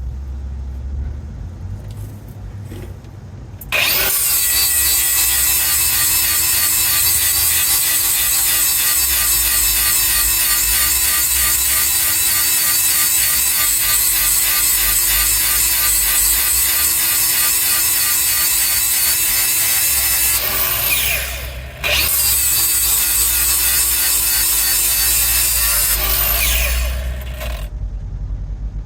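Hand-held power grinder sharpening the teeth on a Bandit Beast 4680's mill: the motor whines steadily with a harsh grinding hiss from about four seconds in. It slows and drops out briefly a little past the middle, picks up again, then winds down near the end.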